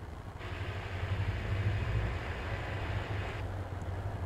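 Diesel locomotive running as it moves past with its freight cars: a steady low rumble, with a higher hiss starting about half a second in and cutting off about three seconds later.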